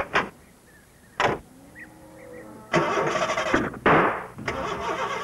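A door shuts with a few clicks and a knock. About three seconds in, a van's starter cranks the engine in a steady rhythm, with a louder cough partway through, but the engine doesn't catch: the van won't start.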